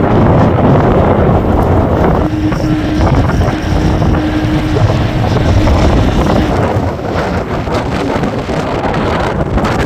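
Strong gusting wind buffeting the microphone: a loud, continuous low rumble, with a faint steady hum from about two seconds in to six and a half.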